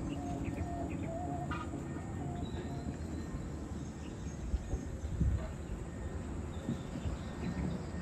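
Distant Komatsu hydraulic excavator at work: a steady low rumble with a couple of brief knocks a little past halfway, under scattered bird chirps and faint insect calls.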